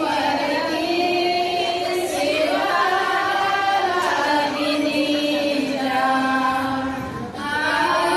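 A group of women singing a welcome song together in unison, with long held notes that step from one pitch to the next and a short break between phrases near the end.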